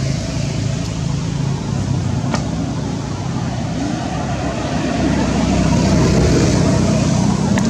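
A steady low rumble with hiss, growing a little louder about five seconds in, with a couple of faint clicks.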